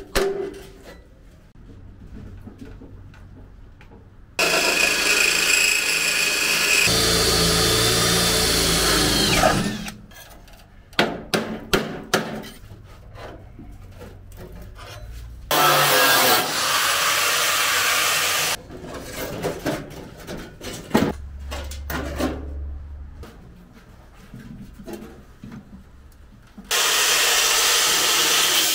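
A power tool runs in three bursts of a few seconds each. The first winds down as it stops. Between the bursts come sharp knocks and clicks of hand work.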